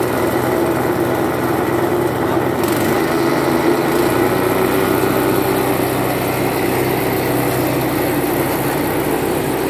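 Small 7.5 HP petrol engine running steadily, driving a feed chopper.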